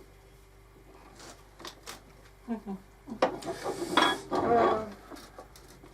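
Metal tools and lathe parts being handled and set down, with a few light clicks, then a run of clinking and clattering about three seconds in.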